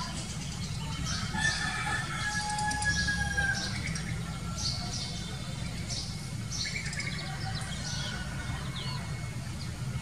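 Birds chirping: many short, high chirps throughout, with a longer drawn-out call about a second in that lasts about two seconds. A steady low rumble runs underneath.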